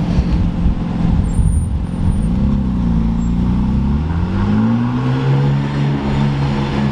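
Sports car engine running on the road. Its note dips briefly, then climbs over a second or two as the car accelerates, and holds steady.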